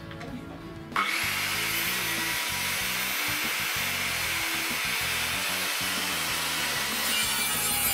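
Makita circular saw starting suddenly about a second in and cutting lengthwise through a wooden board, a loud steady whine with cutting noise.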